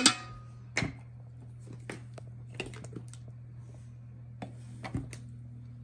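Light clicks and taps of a metal spoon and a plastic spice container against an enamel roasting pan as ground spices are added to a meat filling. The loudest is a sharp tap with a brief ring right at the start, then a second tap just under a second in and a few softer clicks, over a steady low hum.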